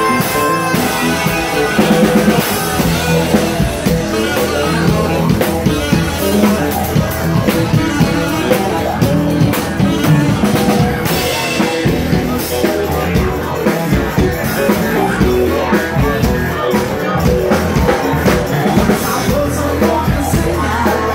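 Live band playing loud rock-style music, with drums, guitar and singing over a steady beat.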